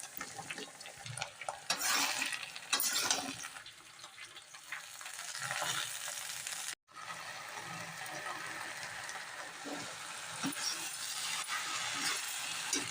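Bhindi (okra) masala frying and sizzling in a pan while being stirred with a spatula, with scraping strokes. The sound cuts out for an instant a little past halfway.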